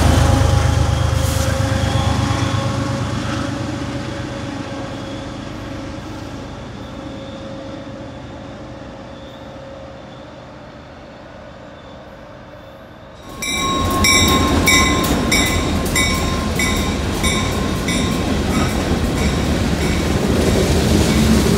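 MBTA commuter rail train pulling away, its rumble fading steadily for about thirteen seconds. Then, abruptly, a freight train of covered hopper cars rolling past, its wheels clicking regularly over the rail joints, with a low engine hum coming in near the end.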